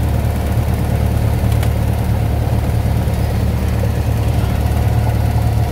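Single-engine piston airplane's engine and propeller running steadily at low taxi power, heard from inside the cockpit as a loud, even drone.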